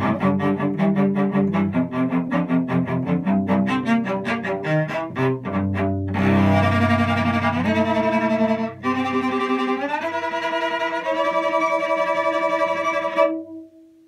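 Solo cello played with the bow: quick, evenly repeated strokes for about six seconds, then long held notes that slide up in pitch. A final accented held note stops abruptly near the end.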